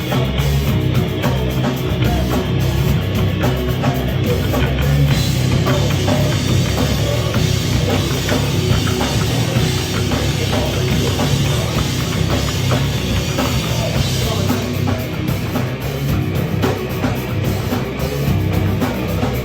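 Loud, heavy rock music with a full drum kit, played steadily throughout.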